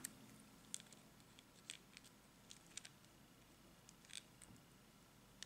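Faint, scattered small clicks and ticks of a bead-and-wire wreath being handled as its cut wire end is bent down.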